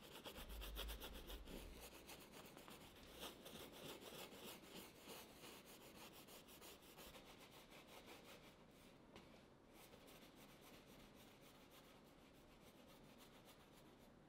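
Bristle brush scrubbing oil paint onto canvas in quick, repeated strokes, louder in the first half and fainter later.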